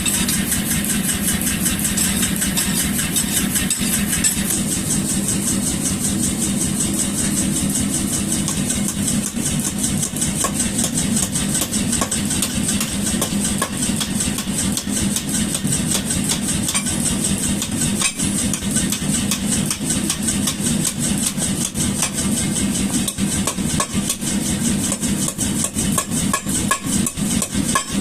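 Power hammer running, striking in a rapid, steady stream of blows.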